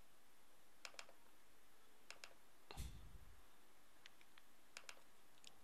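Faint computer mouse clicks, several in quick pairs like double-clicks, over near silence. A soft low thump comes near the middle.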